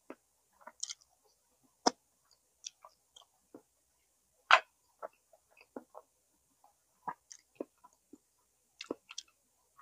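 A person chewing barbecued pork baby back ribs: irregular short wet smacks and clicks of the mouth, the loudest about four and a half seconds in.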